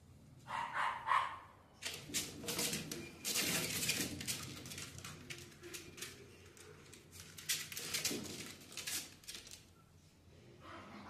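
West Highland White Terrier puppy giving two short barks about half a second in, followed by several seconds of scuffling and clicking noises.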